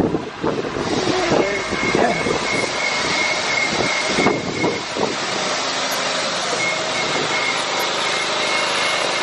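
Wind and city traffic noise on the open top deck of a moving double-decker tour bus: a steady rushing hiss with a faint high tone that comes and goes.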